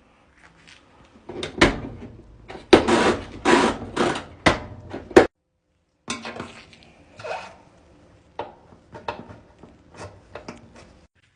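A run of knocks, clunks and scraping of hard parts being handled, heaviest in the first half, cutting out for a moment about five seconds in, then lighter clicks and taps.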